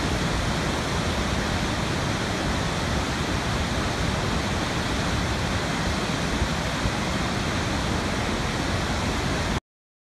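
Large waterfall: a steady rush of heavy water pouring over the falls, which cuts off suddenly near the end.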